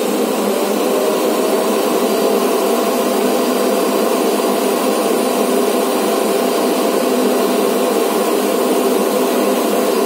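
Viomi Alpha S9 self-emptying dock's suction motor, an old-style vacuum-cleaner motor, running loud and steady as it sucks the dust out of the docked robot vacuum's bin into the station's bag.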